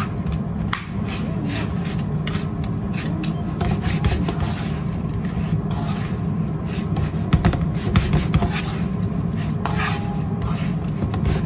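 A spoon scraping and clicking against a nonstick frying pan as sticky caramel-coated dough pieces are turned, in many short strokes over a steady low hum.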